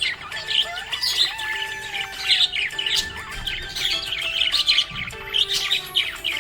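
Budgerigars chirping and warbling in a dense, continuous chatter of quick, overlapping high chirps, over background music of held, stepping notes.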